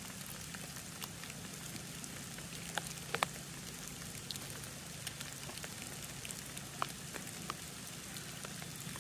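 Faint, irregular snicks of a Scandi-ground carving knife's tip taking small rolling cuts into a green stick, two close together about three seconds in, over a faint steady hiss.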